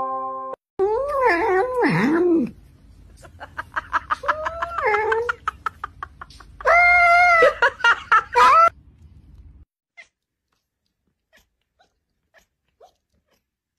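Cats meowing: several rising and falling meows, the longest and loudest about seven seconds in.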